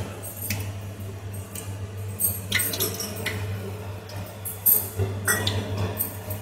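Melted ghee poured from a small bowl into a heated kadhai, with a few scattered clinks and knocks of the bowl against the metal pan over a steady low hum.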